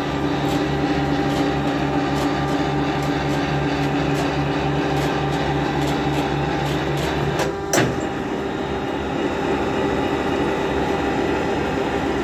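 Carpathian SMFA 110 band sawmill's machinery running with a steady electric hum. About two-thirds of the way through there is a single clunk, and one of the lower hum tones cuts off.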